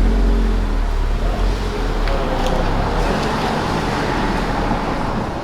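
Car running or driving, a steady low rumble of engine and road noise.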